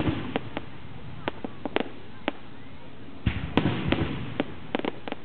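Aerial fireworks shells bursting: a run of sharp bangs and cracks at uneven intervals, thickening into a dense flurry of reports about three and a half seconds in.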